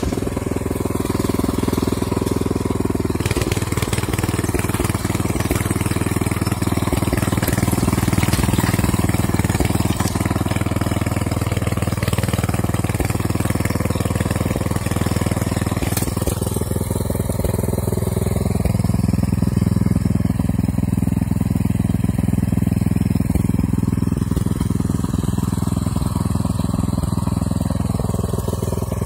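Walk-behind tractor's engine running steadily under load as it drives steel lug wheels through the soil between crop rows, weeding.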